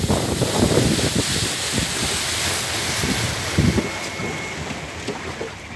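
Wind buffeting the microphone over the rush of water past a small wooden boat under way, easing off somewhat toward the end.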